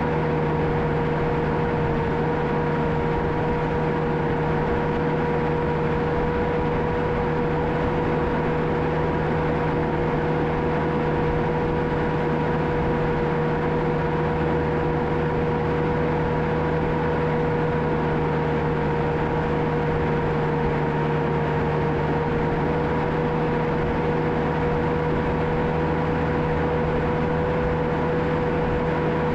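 John Deere 650K crawler dozer's diesel engine running steadily, with a constant high whine over the engine's hum.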